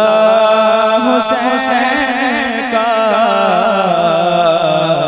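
A man's solo voice chanting devotional Urdu verse, drawing out the word "Hussain" in long, wavering, ornamented held notes.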